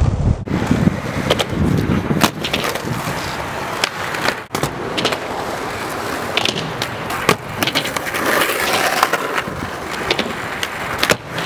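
Skateboard wheels rolling over a rough asphalt court, broken several times by sharp clacks of the board striking the ground.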